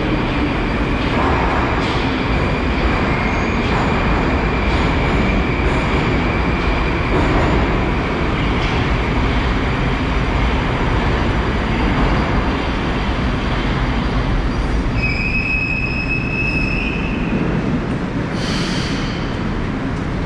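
Moscow Metro Moskva-2020 train arriving at a station and braking to a stop, with steady running noise and a high wheel squeal. A high whine comes a few seconds before the end, then a short hiss as the doors open.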